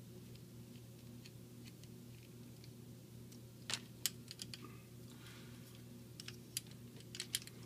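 Quick, sharp clicks and taps of plastic toy parts being handled, a cluster of them starting about halfway in, over a steady low hum.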